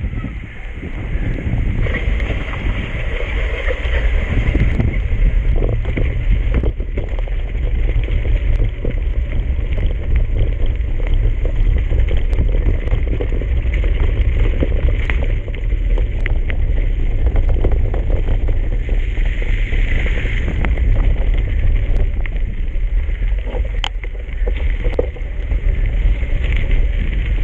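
Wind rumbling on the microphone during a bicycle trail ride, with many short knocks and rattles from the bike going over rough ground.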